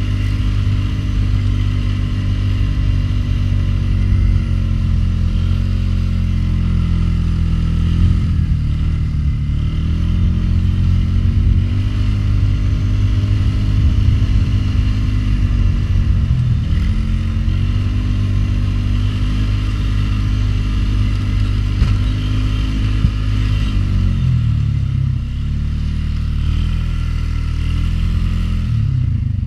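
Polaris Sportsman 500 HO ATV's single-cylinder four-stroke engine running under load while pushing a snow plow. The engine speed dips and recovers about three times.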